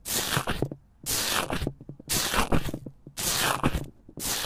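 Foamy slime crackling and popping as a small microphone is pressed down into it, pressed about once a second. Each press gives a burst of fine crackles.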